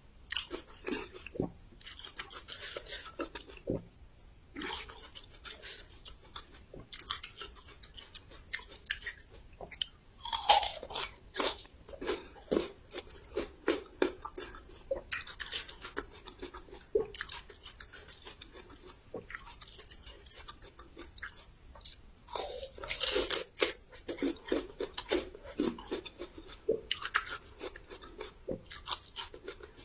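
Close-up crunchy chewing of raw young ginger: crisp irregular crunches as it is bitten and chewed, with louder bites about ten seconds in and again around twenty-three seconds.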